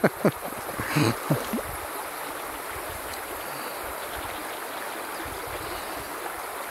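Small creek's water flowing and rippling steadily, with a few short falling whistle-like sweeps in the first second and a half.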